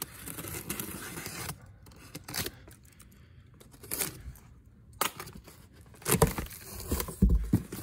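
Corrugated cardboard shipping box being opened by hand: scraping, rustling and tearing of the cardboard flaps, with several sharper scrapes and a dull low thump near the end.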